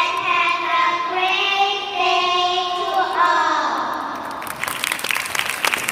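Young girls singing into microphones, with long held notes, the song ending about four seconds in. Many quick sharp claps follow near the end: applause.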